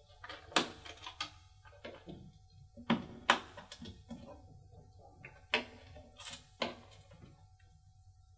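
Small screwdriver unscrewing the cover on the solar transmitter of an Oregon Scientific WMR300 weather station: a series of irregular small clicks and taps on the plastic housing.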